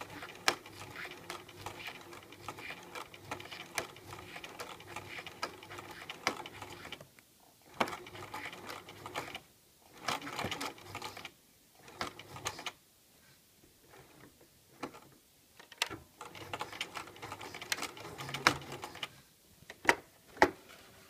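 Domestic sewing machine stitching through cotton fabric, running steadily for several seconds, then in shorter stop-start runs as the topstitching of a zipper facing is guided around its curve. A few sharp clicks come near the end.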